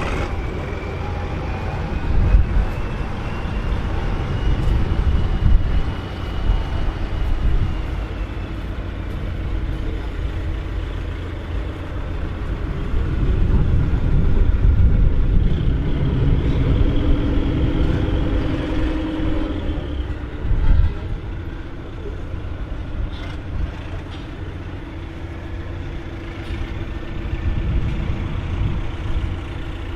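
Case IH 1455 XL tractor's diesel engine running, its level rising and falling and loudest about halfway through, with a thin whistle that rises and then falls in pitch over the first several seconds.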